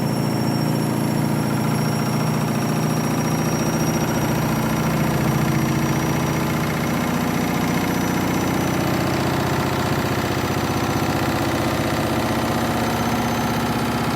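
Candy washing machine spinning fast on its final spin with an overloaded drum: a steady motor hum with the drum's low rumble and vibration, a bit noisy. The low rumble shifts a little about halfway through.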